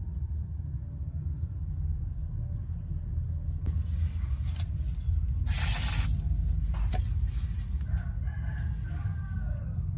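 A rooster crowing near the end, the call falling in pitch, over a steady low rumble. A short noisy burst comes a little past halfway.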